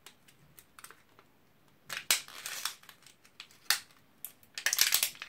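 Small items being handled on a desk: a few light clicks, then two spells of crinkling rustle, about two seconds in and again near the end.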